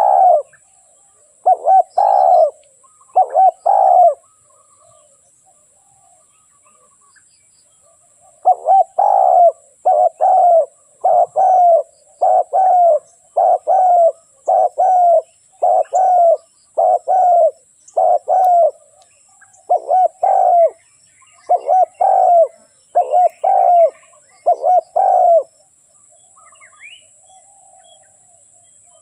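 Spotted dove cooing: three coos near the start, a pause of about four seconds, then a long run of about twenty coos, a little under one a second, stopping a few seconds before the end.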